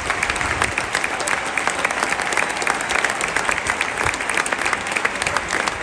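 Large stadium crowd applauding.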